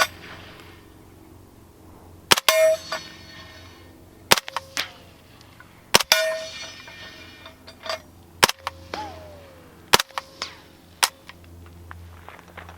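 Suppressed 9mm Heckler & Koch MP5 firing single shots through an AAC Ti-Rant 9 suppressor: about six sharp reports one to two seconds apart, several followed by a brief ringing tone.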